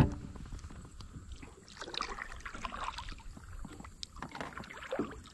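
Knocks and rustles of handling on a plastic fishing kayak, with soft water sloshing. A sharp knock comes right at the start, then a scattering of light clicks and rustles.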